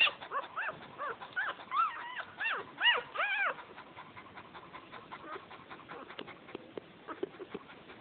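Cocker spaniel puppies whimpering: a quick run of short, high, squealing cries for the first three and a half seconds or so, then only faint small squeaks and ticks.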